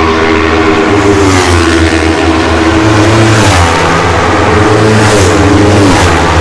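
Racing motorcycle engines at high revs going past on the straight, several pass-bys, the pitch dropping as each goes by with a rush of hiss. A steady low hum runs underneath.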